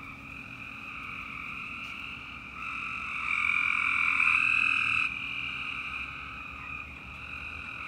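Dense chorus of many frogs calling at once: a continuous, steady trilling in two pitch bands, swelling louder for a couple of seconds in the middle.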